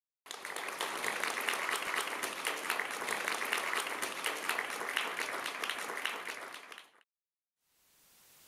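Audience applauding, a dense patter of many hands clapping, fading out and cutting off about seven seconds in. After a moment of silence, only a faint steady hiss remains.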